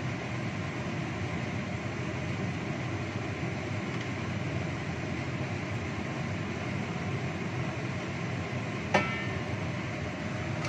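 Chicken wings simmering in sweet soy-chili sauce in a wok on a gas stove, a steady rushing hiss. About nine seconds in, a stainless steel lid is set on the wok with a single ringing metal clank.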